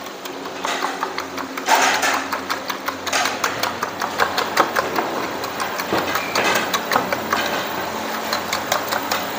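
Rapid, irregular clatter of a metal spatula striking and scraping a wok while stir-frying fried rice, over a steady background hum.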